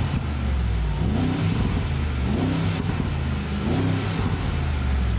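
Mercedes-AMG G 63 4x4²'s twin-turbo 4.0-litre V8 running through its side-exit exhaust, revved in short repeated blips, each a quick rise in pitch over a steady low rumble.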